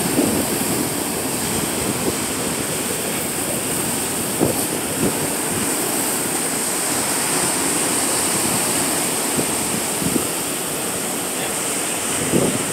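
Ocean surf breaking and washing in over rocks at the shoreline: a steady rushing of waves and foam.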